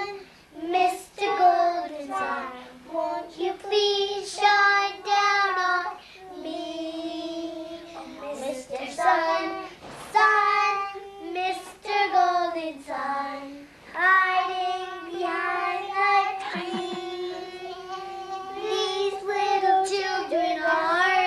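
Young child singing a song in phrases of held notes, with a long drawn-out line near the end.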